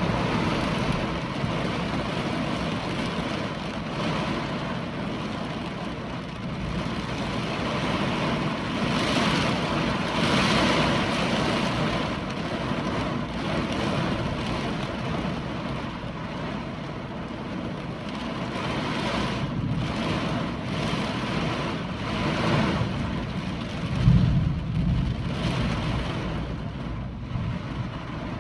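Hurricane wind gusting in swelling and easing surges, buffeting the microphone, with a low thump near the end.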